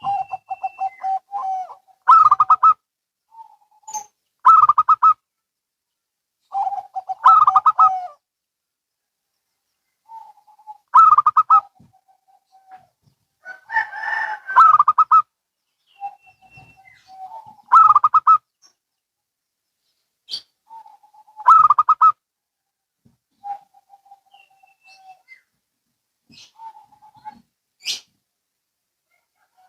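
Zebra doves (perkutut), a local and a Bangkok bird, calling back and forth in short phrases of rapid staccato coos, one every two to four seconds. The phrases stop a little past two-thirds of the way through, leaving only a few soft single notes.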